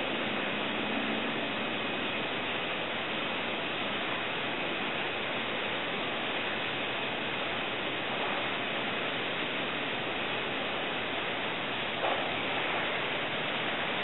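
Steady hiss of background noise with a faint high-pitched whine, and a brief soft sound about twelve seconds in.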